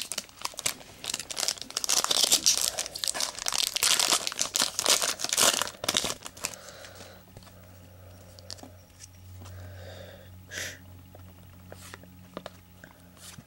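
A baseball card pack wrapper being torn open and crinkled for about six seconds, then quieter handling of the cards with a few light ticks over a faint steady hum.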